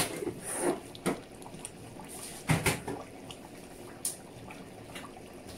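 Cooking handling sounds at the stove: scattered light knocks and clicks, with a louder double knock about halfway through, as ingredients are handled and added to the pot.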